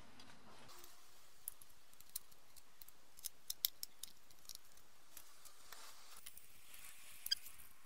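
Small sharp clicks and taps of a brass carbide-lamp bezel and its glass lens being handled and fitted. The clicks are scattered, with a quick run of louder ones near the middle and one more near the end.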